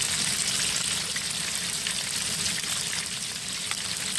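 Hush puppies deep-frying in hot oil in a deep fryer: a steady sizzle with small scattered crackles.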